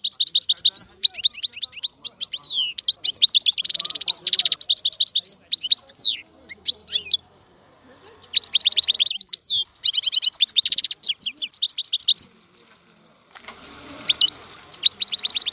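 European goldfinch singing: fast phrases of high, liquid twitters and trills, broken by short pauses about seven and twelve seconds in. A faint steady hiss lies under the song in the last two seconds.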